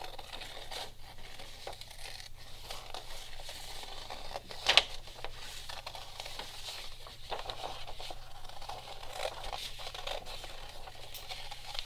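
Scissors snipping through paper, with the sheet rustling as it is turned, and one sharp click a little under five seconds in.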